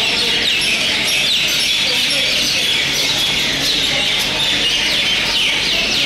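Mynas calling together in a dense, steady chatter, with many short falling chirps repeating over and over.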